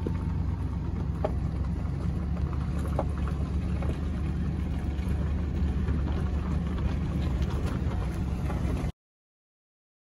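Steady low rumble of a vehicle engine running, which cuts off abruptly near the end.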